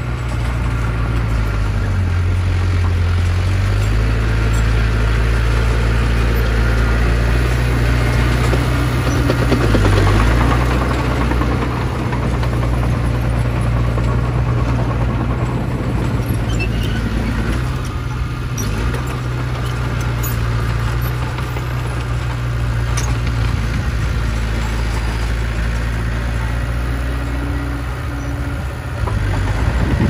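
Small crawler bulldozer's diesel engine running steadily as the dozer pushes soil. The low drone shifts in pitch now and then as the load changes, and is loudest about ten seconds in.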